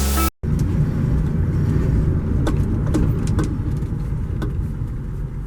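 Car running, heard from inside the cabin: a steady low rumble with a few light clicks and knocks.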